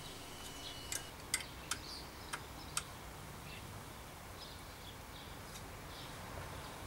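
Hex key clicking against the seat post's saddle clamp bolt as it is turned: five sharp, uneven ticks in the first three seconds.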